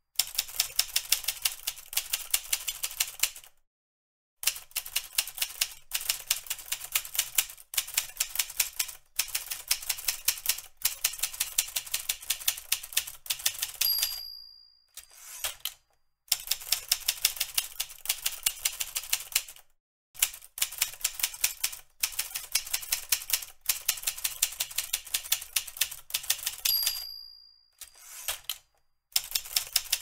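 Manual typewriter typing in fast runs of sharp key strikes with short pauses between them. The margin bell dings twice, about halfway through and near the end, signalling the end of a line.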